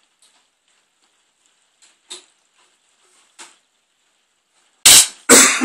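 Carry-case clasps on a wooden vacuum-forming sheet frame being snapped shut to clamp the plastic sheet between the frame halves: two loud, sharp snaps about half a second apart near the end, after a few faint light clicks of handling.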